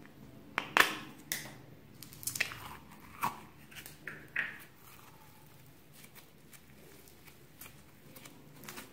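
A small clear plastic slime tub being handled and emptied, with a few sharp plastic clicks and crinkles, the loudest under a second in, as a lump of teal foam-bead slime is pulled out. After about five seconds only faint crackles are left as the foam beads are squeezed between the fingers.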